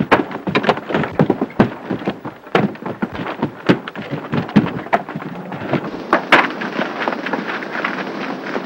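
Fistfight inside a wooden wagon: a fast, dense run of thuds, bangs and crashes as bodies slam into the plank walls and loose things are knocked about, about two or three hits a second.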